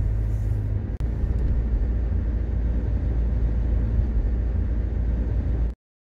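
Car driving at steady speed, heard from inside the cabin: a steady low rumble of engine and tyres on the road. It cuts off suddenly near the end.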